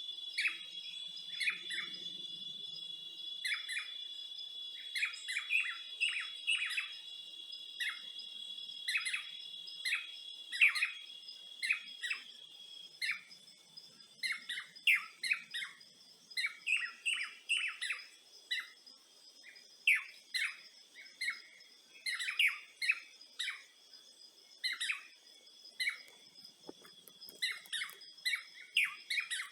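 Several birds chirping in quick, repeated short notes, over a steady high-pitched insect drone.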